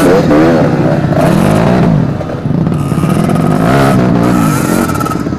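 Trail motorcycle engine revving, its pitch rising and falling again and again as the throttle is worked.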